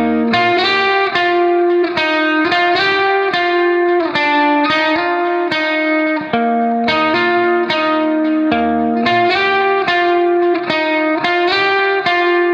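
Background instrumental music: a steady run of plucked notes over held chords.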